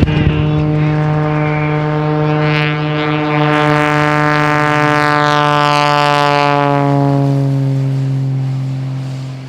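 Wolf Pitts Pro aerobatic biplane's six-cylinder 540 cubic inch Lycoming engine and propeller in a fly-by, the engine note falling slowly in pitch as it passes. It grows loudest and hissiest in the middle, then fades near the end.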